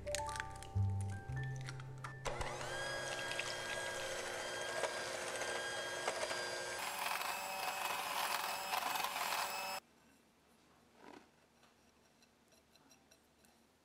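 Background music over the whir of an electric hand mixer beating batter in a glass bowl. Both stop abruptly about ten seconds in, leaving only a few faint clinks.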